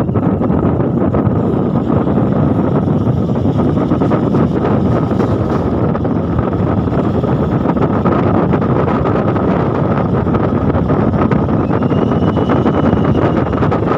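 Steady noise of a moving vehicle on the road, with wind buffeting the microphone.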